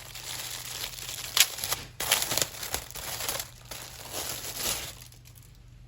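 Plastic packaging crinkling and rustling as a small item is handled and unwrapped, with sharper crackles about a second and a half in and around two seconds. It dies down near the end.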